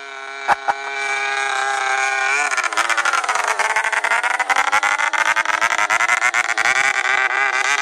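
Nitro two-stroke engine of a radio-controlled biplane running in flight. It gets louder about two seconds in, and its pitch then sinks and climbs back up over a few seconds.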